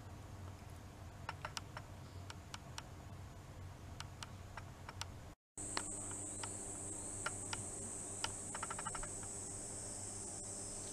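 Quiet room noise with scattered light clicks. About halfway through, after a cut, a steady high-pitched drone of cicadas comes in through an open window, with more scattered clicks over it.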